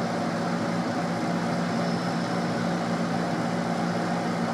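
Steady whirring hum and hiss of a running fan, with a constant low drone under it.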